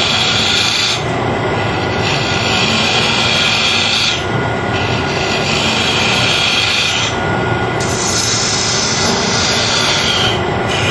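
Wood lathe running while a carbide-insert turning tool cuts kiln-dried maple: a steady hissing shaving sound over the machine's hum, broken by four short pauses as the cutter comes off the wood between passes.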